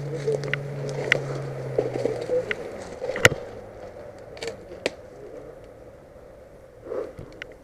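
Footsteps crunching twigs and dry leaves on a woodland floor: scattered sharp cracks, the loudest about three seconds in. A steady low hum dies away about two and a half seconds in.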